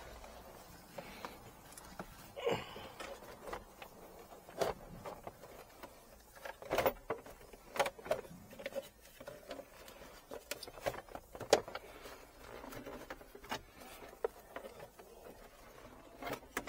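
Scattered, irregular clicks and knocks of hands handling a car's interior trim around the centre console and gear selector, with one sharper knock about two-thirds of the way through.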